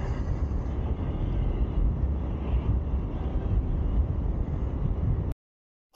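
Honda CT125 Hunter Cub's single-cylinder engine running steadily as the bike rides along, with wind noise over the microphone. The sound cuts off abruptly about five seconds in.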